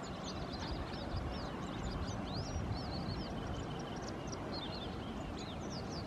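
Many small birds chirping at once: a dense run of short, high, overlapping chirps that never stops, over a steady low rumble.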